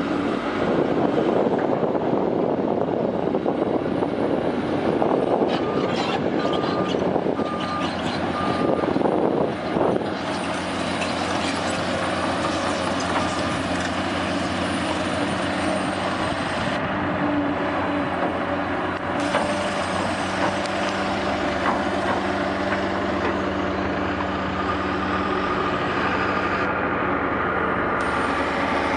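Heavy diesel engines of construction machinery running steadily, with a loud rushing noise through the first third and a few short beeps about six seconds in.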